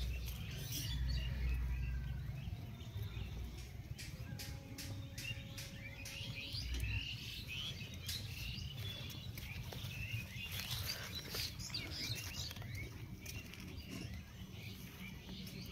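Small birds chirping and twittering, busiest in the second half. A low rumble sits under the first few seconds, with scattered light clicks.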